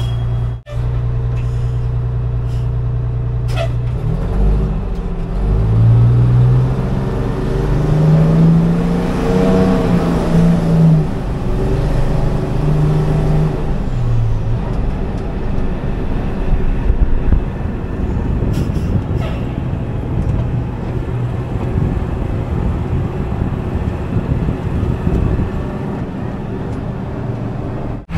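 Pierce ladder fire truck's diesel engine heard from inside the cab: idling in traffic, then pulling away, its note climbing and dropping back a few times as it accelerates through the gears. It then runs steadily with road noise.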